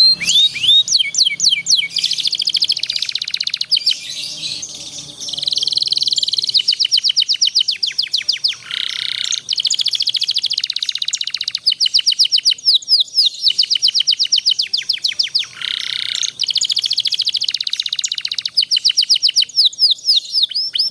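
Domestic canary singing a long unbroken song of rolling trills: runs of fast, rapidly repeated notes a few seconds each, alternating with short buzzy phrases, the kind of master song used to train young canaries.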